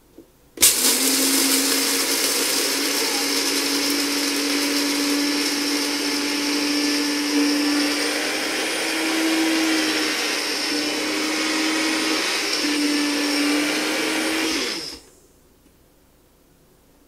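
Electric coffee grinder running steadily, grinding coffee beans fine. Its motor hum wavers slightly in pitch. It starts just under a second in and switches off abruptly about fifteen seconds in.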